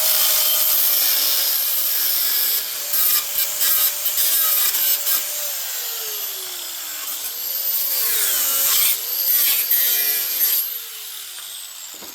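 Handheld power grinder running against the metal bumper, its motor tone sagging each time it is pressed into the work. Near the end it is switched off and winds down.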